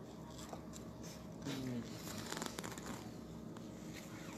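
Faint rustling and soft clicks of a pigeon being handled in the hand, over a low steady hum. A faint voice is heard briefly about a second and a half in.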